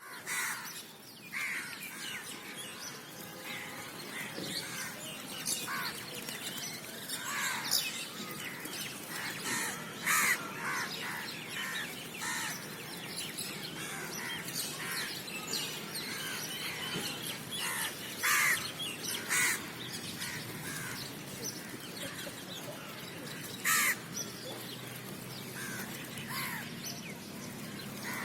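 Crows cawing in short, loud calls every few seconds, over a continuous background of small birds chirping.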